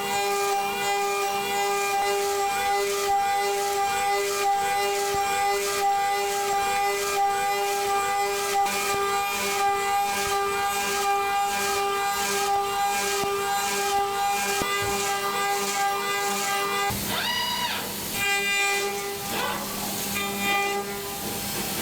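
DMG five-axis CNC milling machine cutting: a steady high whine from the spindle and cutter, pulsing regularly about twice a second. About three-quarters of the way through, the pitch sweeps up and back down once.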